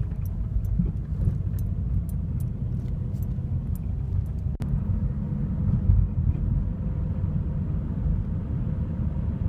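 Car cabin noise while driving: a steady low rumble of engine and road, with a few faint clicks in the first few seconds.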